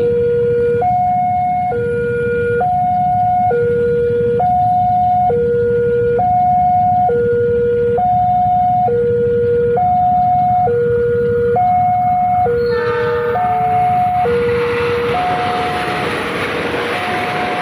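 Railway level-crossing warning alarm sounding a steady two-tone signal, a high note and a low note alternating, each lasting just under a second. About thirteen seconds in, the rushing noise of a passing passenger train rises under it and the tones grow fainter.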